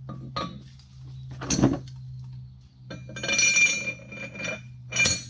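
Steel hub puller parts clinking and clanking against each other as they are handled and fitted together: a sharp knock, then a ringing metallic clatter and another ringing knock near the end.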